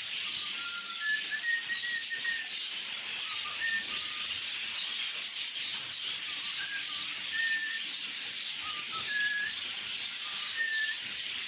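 Many birds chirping together in a dense, continuous chatter, with short clear whistled notes breaking through every second or so.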